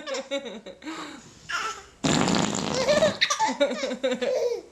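A baby laughing in short bursts, broken about two seconds in by a loud fart sound lasting about a second, after which the baby laughs again.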